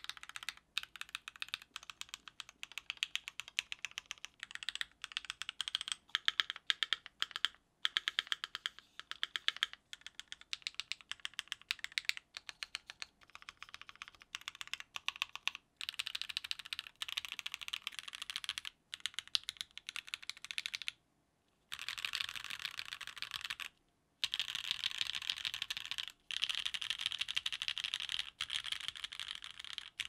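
Keychron Q3 TKL mechanical keyboard, modded with lubed and filmed Alpaca linear switches and GMK Apollo keycaps, being typed on and pressed key by key: a clacky stream of keystrokes, broken twice briefly about two-thirds of the way through.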